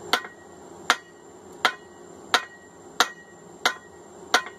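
Hand hammer striking hot steel on an anvil in a steady rhythm, seven blows about two-thirds of a second apart, each with a short metallic ring. This is a blacksmith drawing out the peen of a hand-forged diagonal peen hammer head.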